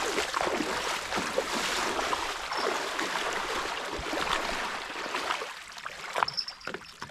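Water rushing and splashing, a steady noise that dies away after about five seconds, followed by a few light clicks.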